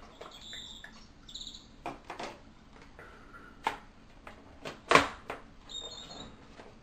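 Coloured pencils and drawing things being handled on the desk: a series of light clicks and taps, the sharpest about five seconds in, with a few short high squeaks.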